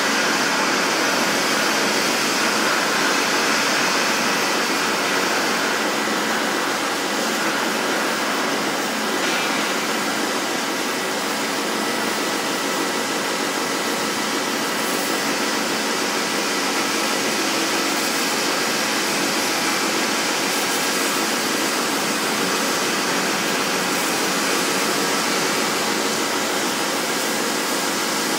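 Gantry CNC plasma cutter's torch cutting steel plate: a loud, steady hiss with faint steady tones through it.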